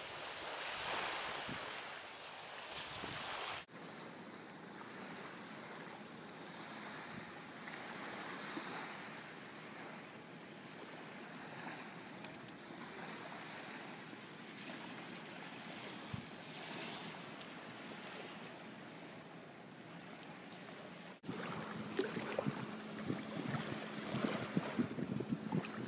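Wind and sea-water noise at sea, in three separate takes, each starting and stopping abruptly. The last take is louder, with a steady low hum under gusts of wind on the microphone.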